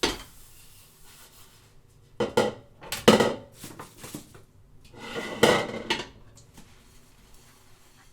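Dishes, cups and glasses being handled while washed: a sharp knock at the start, then two bursts of clattering and clinking a few seconds apart, separated by quieter stretches.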